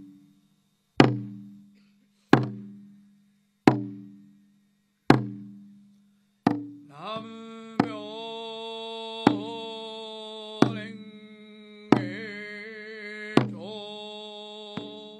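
Live devotional music: a slow drum struck about once every second and a half, each stroke dying away, over a steady drone. About seven seconds in, a voice joins, singing long held notes with a slight waver.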